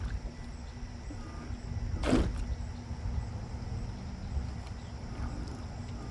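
Wind buffeting the microphone with a low rumble, and one louder gust-like whoosh about two seconds in. A faint steady hum runs underneath.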